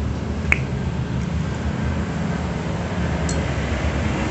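A single sharp metallic clink about half a second in, from small steel valve parts being handled on a motorcycle cylinder head, over a steady low rumble.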